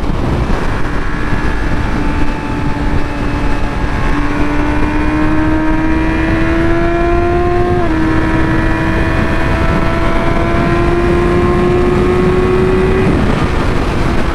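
Yamaha R6's inline-four engine pulling at highway speed, its pitch climbing slowly, dipping slightly about eight seconds in, then climbing again and easing off near the end, through the stock exhaust with its catalytic converter still fitted. Heavy wind rush over the helmet microphone.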